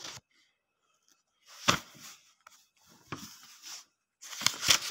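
Paper rustling in three short bursts as book pages are handled.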